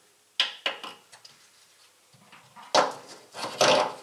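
Metal car parts being handled and knocked together as a pedal-assembly component is offered up to a car's firewall: a few sharp clicks and knocks, then a louder cluster of clunks with a short rattle about three seconds in.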